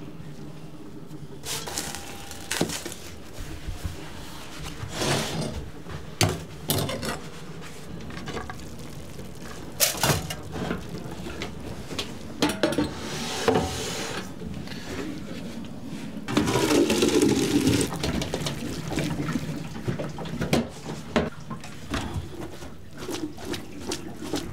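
Stainless steel kitchen trays and pots clattering and knocking, then liquid splashing and pouring as a pot of cooked shredded beef is tipped into a perforated steel pan over a sink to drain, with a louder rush of liquid about two-thirds of the way in.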